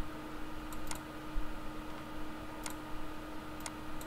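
Computer mouse clicks: about five short, sharp clicks at uneven intervals, two of them close together just under a second in, over a steady low hum.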